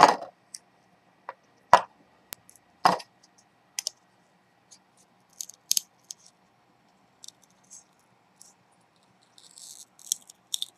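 Steel kitchen knife clicking and scraping against the metal heat spreader of a Pentium 4 processor as the lid is pried off: a few sharp knocks in the first three seconds, scattered light ticks, and a short scratchy scrape near the end.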